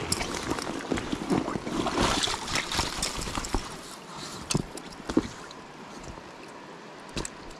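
Creek water splashing and dripping as a mesh crawfish net is handled and lifted out of the shallows. The splashing is loudest in the first half, and a few sharp knocks follow in the second half.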